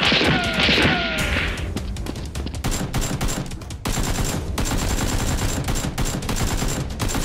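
Rapid gunfire sound effects: volleys of shots in quick succession, with a few whistling, ricochet-like glides in the first second or so.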